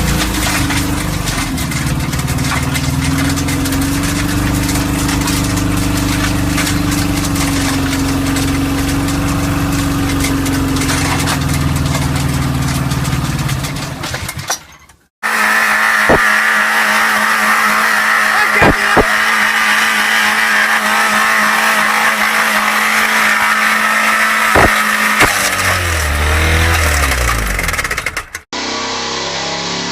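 Car engines held at high revs, being run to destruction. The sound cuts abruptly twice. First comes a steady engine drone that fades away, then a drone with a high whine and a few sharp knocks that falls in pitch near its end, then another engine.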